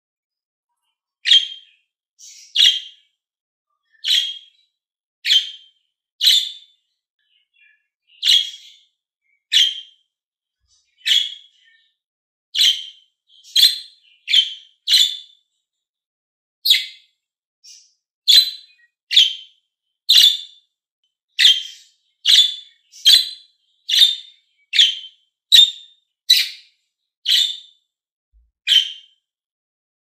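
Budgerigar giving short chirping calls over and over, about one a second, coming a little faster in the second half.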